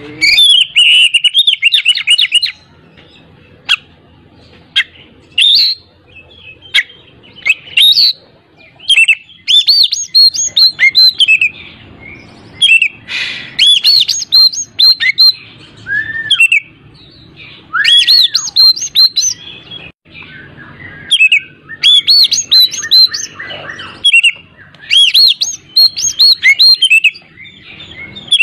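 Oriental magpie-robin singing a full, energetic song of loud phrases made of rapid, varied whistles and chirps, broken by pauses of a second or two. A couple of lower slurred whistles come in the middle.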